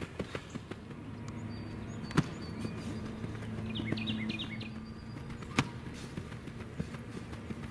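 Two sharp thuds about three and a half seconds apart: a player hitting a padded pop-up tackling dummy. A steady low hum runs underneath, and a quick run of bird chirps comes between the two thuds.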